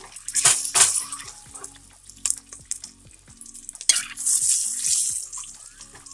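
Boiled eggs frying in hot spiced oil in an aluminium pressure cooker, sizzling in loud surges about a second in and again around four to five seconds in, as a metal spatula stirs them and clicks and scrapes against the pot.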